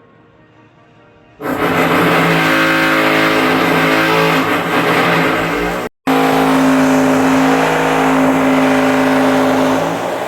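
Jackhammer breaking out floor tiles in the apartment above, heard through the ceiling: a loud, steady hammering drone that starts about a second and a half in and drops out briefly halfway through.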